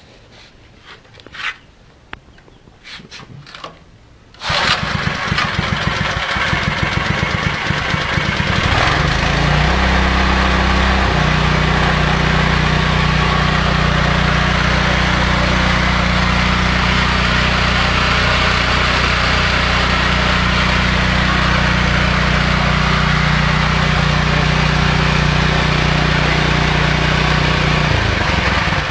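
A few clicks, then a Kosoku 5.5 hp single-cylinder gasoline engine starts about four seconds in and runs. A few seconds after starting it settles to a steady, even speed, and its speed shifts slightly near the end.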